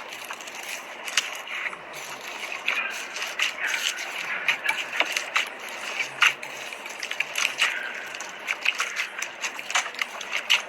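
Slime being squished and worked, with a dense stream of small crackling clicks and pops.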